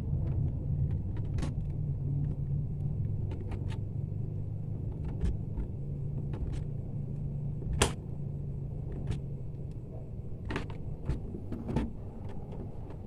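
A steady low rumble in the background, with scattered small clicks of pliers and copper wire as the stripped ends are twisted together into one joint. There is one sharper click a little past the middle.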